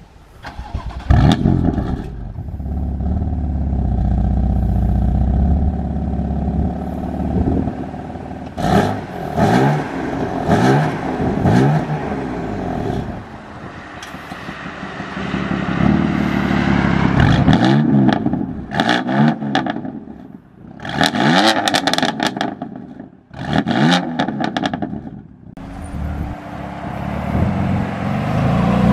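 BMW M2 Competition's twin-turbo inline-six through an aftermarket cat-back exhaust: it fires up about a second in and settles into a steady idle, then is revved again and again, each rev rising and falling, with a final rise near the end.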